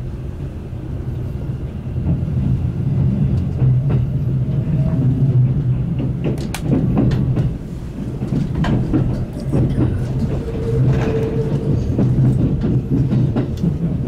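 Kintetsu limited express train running, heard from inside the car: a steady low hum, with the wheels clacking over rail joints a few times around the middle.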